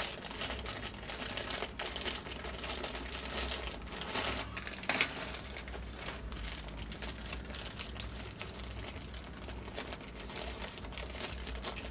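Clear plastic bags of resin model-kit parts crinkling and rustling as they are handled and lifted, with many irregular sharp crackles.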